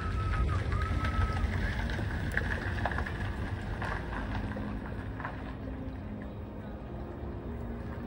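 Outdoor ambience: a steady low rumble that eases a little in the second half, with a few short whistled notes in the first second and a half and scattered faint ticks.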